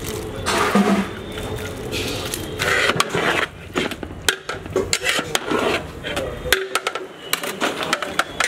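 Metal spatula scraping and knocking against the side of a large metal cooking pot as cooked rice is mixed, with many short clanks and scrapes.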